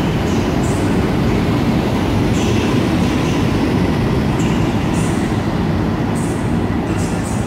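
PKP Intercity EU07 electric locomotive (EU07-216) hauling passenger coaches along the platform close by: a steady heavy rumble of wheels on rail, with short high-pitched bursts now and then.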